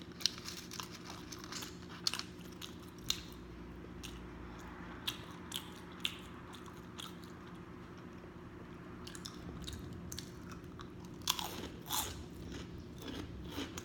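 A person eating sausage links and chips close to the microphone: steady chewing with scattered sharp crunches and bites, a few louder ones near the start and about three quarters of the way in.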